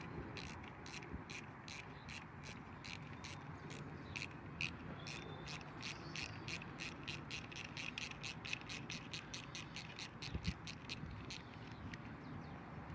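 Ratchet socket wrench with a 10mm socket clicking steadily, about four clicks a second, as it undoes the loosening bolt of a Suzuki GS500's gear pedal. The clicking stops a little before the end.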